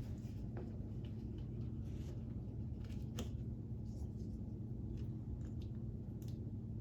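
Light plastic clicks and taps of K'Nex pieces being handled as the last wheel is fitted onto the model, a few scattered clicks over a steady low hum.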